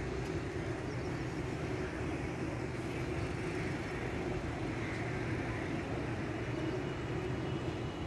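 Steady low rumble of outdoor background noise at a constant level, with no distinct events.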